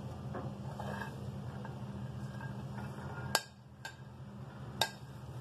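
Chopped vegetables being pushed off a plate into a glass bowl: faint light scraping, then two sharp clinks of plate against glass bowl, about three and a half seconds in and again near the end, over a steady low hum.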